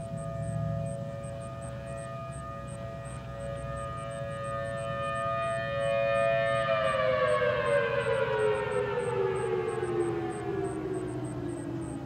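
Federal Signal civil defense sirens, dominantly the downtown Model 5 and a Thunderbolt, sounding together on two slightly different steady tones. About six and a half seconds in they shut off, and their pitch slides steadily down as they wind down at the end of the test.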